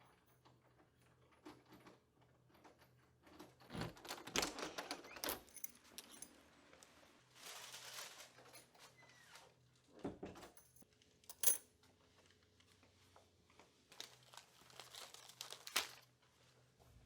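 Small handling noises: clusters of clicks and rattles, a rustling hiss, a low thump and a single sharp click.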